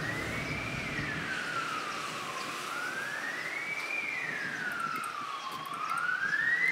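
An emergency-vehicle siren wailing, its pitch sweeping slowly up and down about every three seconds.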